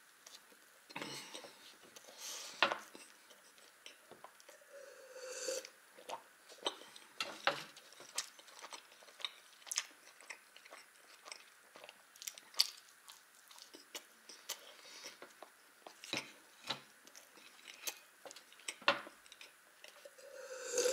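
A person biting and chewing soft, juicy baked buns close to the microphone: many short wet mouth clicks and smacks. Near the end, a drink swallowed from a glass jar.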